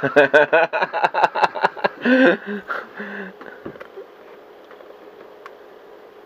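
A voice without clear words, mixed with a quick run of small sharp clicks, for the first two seconds or so; then only a faint steady hum.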